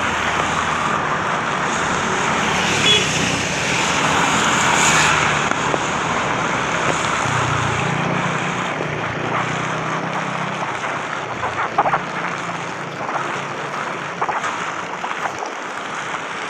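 Heavy rain falling on an umbrella and a wet street, with road traffic running by; a few sharp ticks about three-quarters of the way through.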